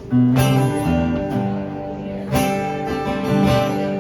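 Acoustic guitar strumming the song's instrumental intro: sustained chords over low bass notes, with strong strums about a quarter second in, just past two seconds and again near three and a half seconds.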